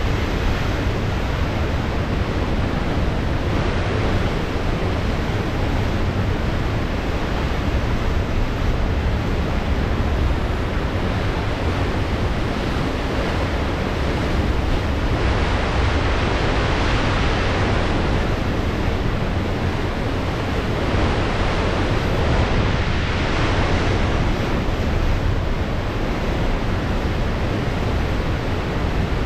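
Pacific Ocean surf washing steadily, with wind buffeting the microphone as a low rumble. The wash swells louder a little past the middle and again about three quarters through.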